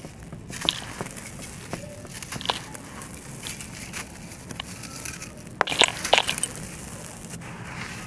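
Dry, gritty concrete chunks being squeezed and crumbled by hand: a soft crunching with scattered sharp cracks as pieces break. A cluster of louder cracks comes about six seconds in.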